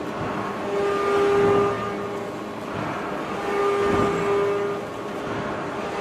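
Large open-die forging press working a glowing steel shaft forging: a steady machine hum that swells and fades twice, with a low thud about four seconds in.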